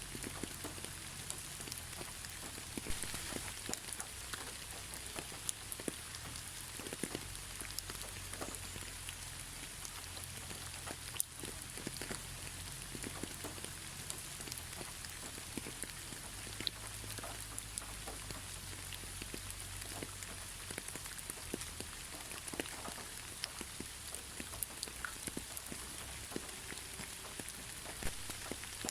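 Steady moderate rain, an even hiss of rainfall with many separate drops ticking sharply on a near surface.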